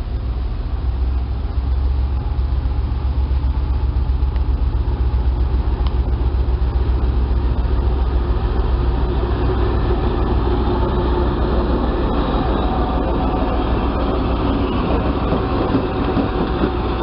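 A 2M62 two-section diesel locomotive running light, its two-stroke V12 diesel engines running steadily and growing louder as it approaches and passes close by.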